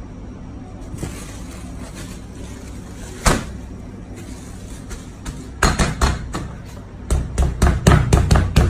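Meat mallet pounding a raw beef patty wrapped in plastic on a steel counter. A few scattered blows come about five and a half seconds in, then a fast, even run of thuds at about four a second. A single sharp click comes earlier.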